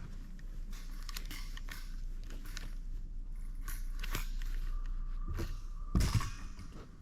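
Crackling rustles and small clicks close to the microphone, typical of handling noise, with a heavier knock about six seconds in and a faint steady whine in the second half.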